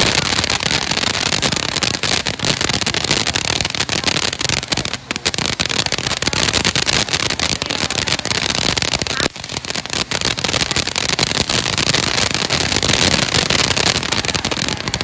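Black Cat 'Close Encounters' firework fountain spraying sparks: a loud, continuous hiss packed with rapid crackling, dipping briefly about five seconds in and again about nine seconds in.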